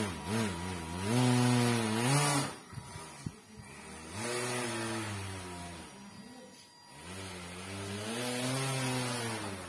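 Small brushed DC motor spinning a plastic propeller on a homemade propeller-driven RC car, speeding up and slowing down in three bursts. Its hum rises and falls in pitch each time, and the first burst is the loudest.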